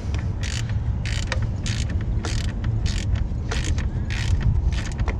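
Hand ratchet backing out a bolt on a generator's recoil starter housing: a short burst of pawl clicks on each back-swing, about nine strokes roughly every half second to two-thirds of a second, over a steady low rumble.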